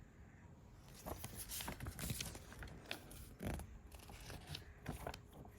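Paper being handled: the small printed user manual and its packaging rustling and scraping in a string of irregular crinkles that starts about a second in.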